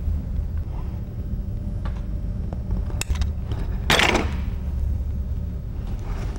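A screwdriver working a small screw out of a shotgun's steel forend iron, giving a few light metal clicks, then a brief louder scrape about four seconds in, over a steady low rumble.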